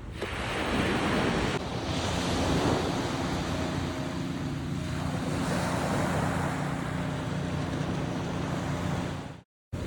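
Small ocean waves washing onto the beach in a steady surf, with some wind on the microphone. The sound cuts out briefly near the end.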